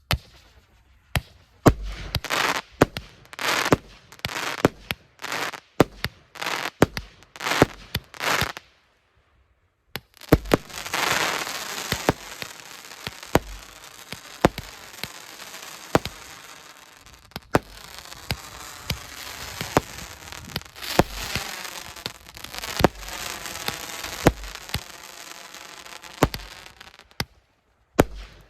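M61 fireworks battery (a 150-shot consumer cake) firing: a rapid series of sharp shots, each followed by a noisy burst. There is a pause of about a second near nine seconds, then the shots come thick and the bursts run together almost without break until shortly before the end.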